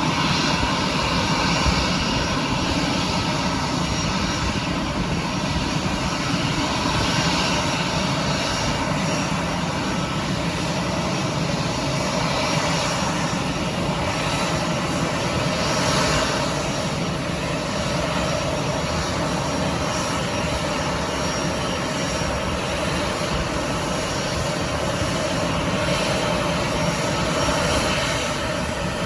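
Aircraft engines running at the airport: a steady rushing noise with a faint steady whine over it.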